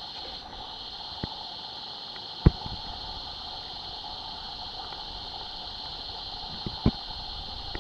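Steady, continuous drone of rainforest insects, one high-pitched and one lower, with a few sharp knocks over it, the loudest about two and a half seconds in.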